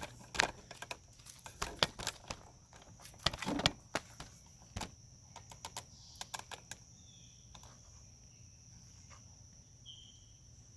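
Irregular metallic clicks and clinks of a Torx star wrench working the throttle-body bolts, busiest in the first few seconds. Later, a few faint short bird chirps over a steady high insect drone.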